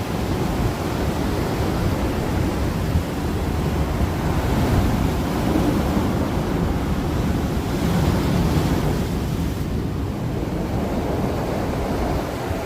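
Storm surf breaking on a beach, with wind buffeting the microphone: a steady, heavy rushing noise that swells and eases a little.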